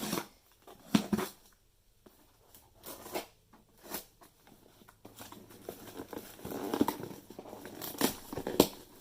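A cardboard shipping box being opened by hand: tape and packaging tearing and crinkling. A few separate rips come in the first half, then continuous rustling with sharper tears near the end.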